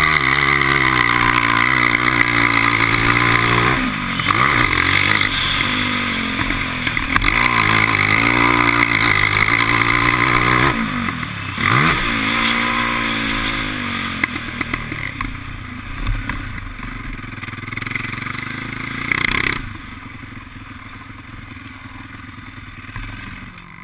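ATV engine revving and pulling hard, its pitch rising and falling with the throttle, with two brief drops as the throttle is closed. It is heard through a helmet-mounted camera. A few seconds before the end, the engine falls to a much quieter, steady low run.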